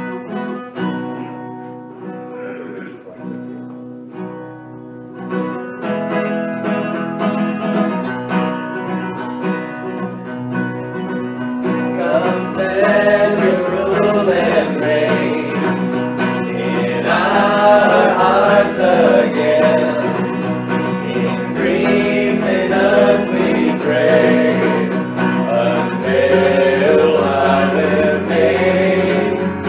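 Worship band playing: an acoustic guitar plays an intro, and about twelve seconds in singing voices and low bass notes come in.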